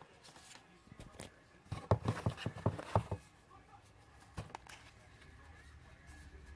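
Handling noises from a cosmetics unboxing: light taps and clicks of packaging and product cases being handled, coming as a quick flurry about two to three seconds in and a few scattered ones after.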